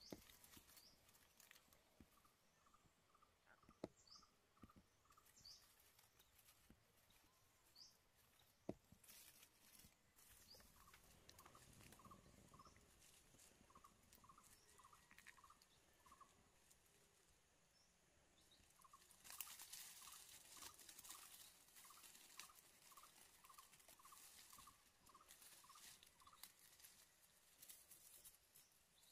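Faint forest sounds: an animal call of short notes repeated in runs at about three a second, with scattered higher chirps. Two sharp clicks come early on, and a rustling hiss sets in about two-thirds of the way through.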